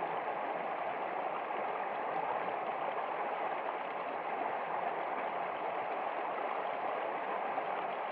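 Running water, like a stream flowing over stones: a steady, even rush with a gurgling texture and no breaks.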